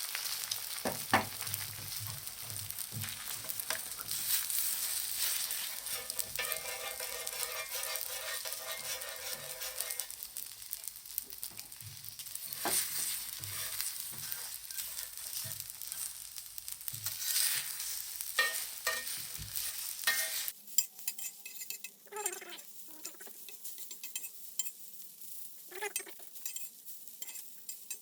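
Egg and garlic rice frying on a 9 mm thick steel griddle: a steady sizzle, with a spatula scraping and clicking against the plate as the rice is stirred. The sizzle is quieter after about twenty seconds.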